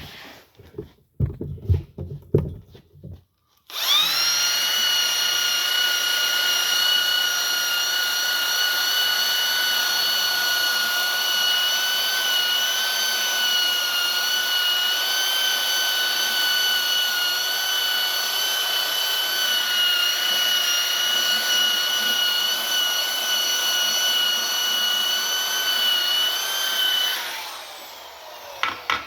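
Power tool spinning a wire wheel against a cast-iron engine block, cleaning the metal around a crack before pinning. It gives a steady high whine that starts about four seconds in and winds down near the end, with a few knocks before it starts.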